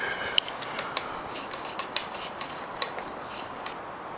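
Scattered light clicks and knocks of a T-handle wrench and loose motorcycle parts being handled during disassembly, about one every half second to second, over a steady hiss.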